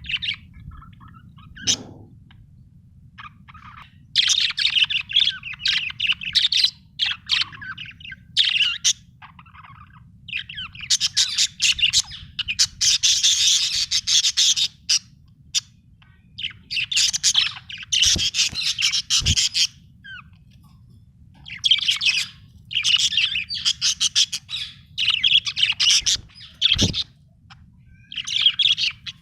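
Budgerigar chirping and warbling in quick runs lasting one to several seconds, with short pauses between, over a faint steady low hum. A few soft low thumps come in, around two seconds in, twice near the middle and once near the end.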